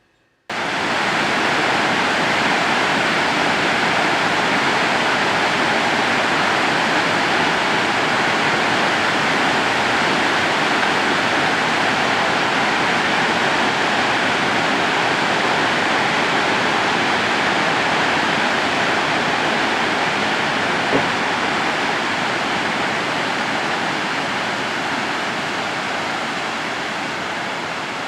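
Waterfall's rushing water, a loud steady rush that cuts in suddenly about half a second in and eases a little toward the end, with one faint click about three-quarters through.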